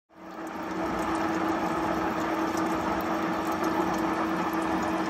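Gear hob cutting a spur gear on a 1927 Ohio universal milling machine, with coolant flowing over the cut: a steady machine hum with a constant mid-pitched whine, fading in at the start, with faint scattered ticks.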